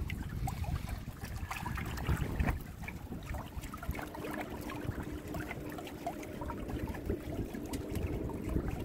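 Water trickling and lapping along the hull of a Windrider 17 trimaran under sail, in small irregular splashes over a low rumble.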